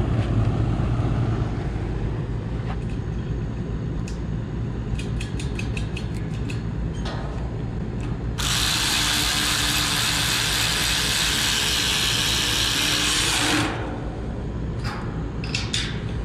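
Cordless electric ratchet running for about five seconds, from about eight seconds in, driving down a nut that bolts a new heat pump condenser fan motor to the unit's top grille. A few quick clicks come before it, over a steady low rumble.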